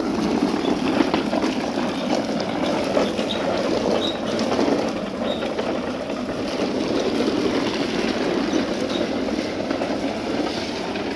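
Hard plastic wheels of children's ride-on toy cars rolling over concrete paving stones: a steady rattling rumble.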